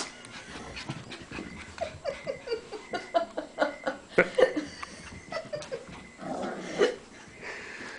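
Cavalier King Charles Spaniel puppy yapping in a rapid run of short high yips, several a second, starting about two seconds in, then a longer, rougher sound near the end. He is barking at his own reflection in a mirror.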